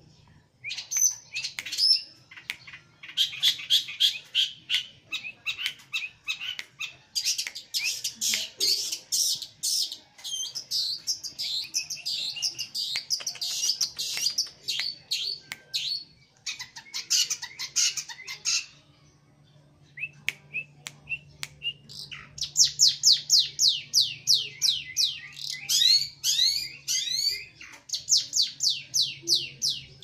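Long-tailed shrike (pentet) singing in long runs of rapid, high chattering notes, about four or five a second. The song breaks off for a few seconds about two-thirds of the way through, then starts again.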